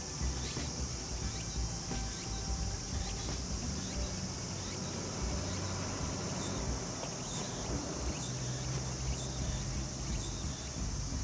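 Insects singing: a steady high trill, with a second call in short, evenly repeating pulses above it, over a low rumble.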